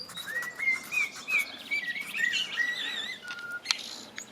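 Common blackbird singing a string of fluty, warbling notes, with higher twittering from other small birds mixed in.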